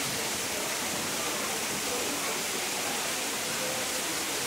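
Steady, even rush of water, with no separate splashes standing out. Faint distant human voices underneath.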